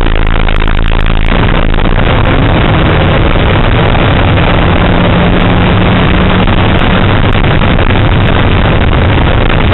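Car engine running hard at high revs under full throttle, heard loud from inside the cabin along with road and wind noise. The engine note changes about a second in.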